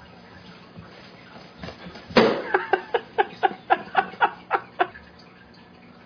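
A person laughing: a loud burst about two seconds in, then a run of about ten quick pitched 'ha' pulses, roughly four a second, that fade out near the five-second mark.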